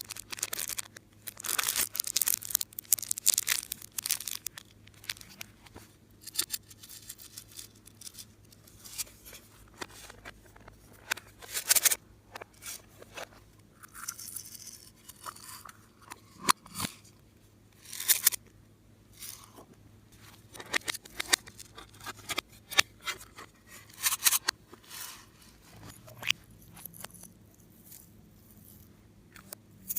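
Irregular crinkling, crackling and snipping, made by plastic piping bags and slime being handled and cut during slime-making.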